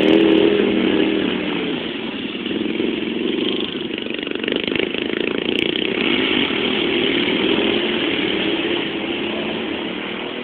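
Racing riding lawn mower's small engine running at high revs, its note wavering a little; it grows fainter near the end as the mower draws away.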